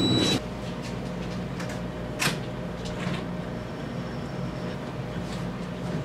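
A short high electronic beep at the very start, then the steady low hum of a room air-conditioning unit, with a soft knock about two seconds in and faint ticks.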